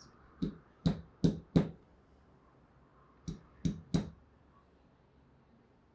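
Seven sharp knocks of small hard objects on a work surface: four quick ones in the first second and a half, then three more about three seconds in.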